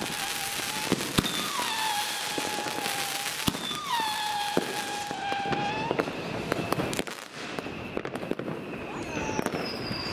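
Whistling Sputnik fireworks going off one after another, each whistle sliding down and then holding steady for a second or two. Under them runs a constant crackle with scattered sharp bangs.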